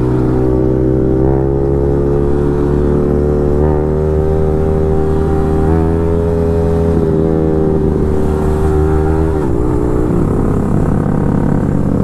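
Motorcycle engine running at road speed while riding, its note holding steady and slowly rising. About nine and a half seconds in, the note wavers and settles lower.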